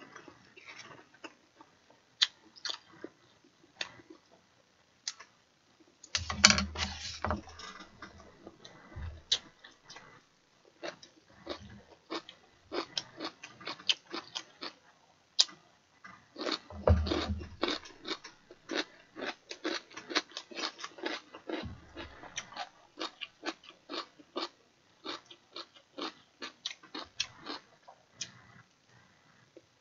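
Close-up chewing and wet mouth sounds of a person eating stew with rice: a dense, irregular run of small clicks, with two louder bursts about six and seventeen seconds in.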